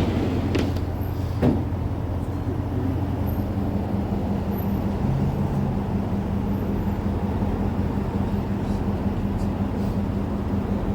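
A motor vehicle's engine running steadily, with a steady hum that gains a steady tone about three seconds in. A few knocks come in the first couple of seconds.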